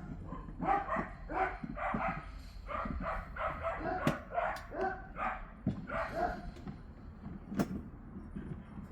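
A dog barking in a quick string of short, yappy barks, about two to three a second, with a couple of sharp knocks in between.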